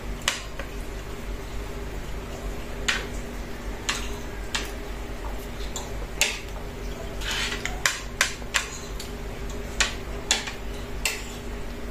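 Metal fork and spoon clinking and scraping against a ceramic plate while eating rice, about a dozen sharp clicks at irregular intervals. A steady low hum runs underneath.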